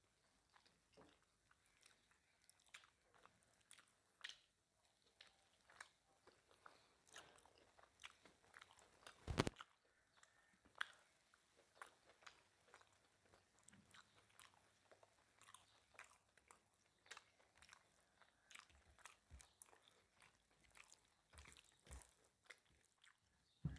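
Close-miked eating of mutton curry and rice: soft wet chewing and mouth smacks in a steady run of small clicks. A single loud knock comes about nine and a half seconds in.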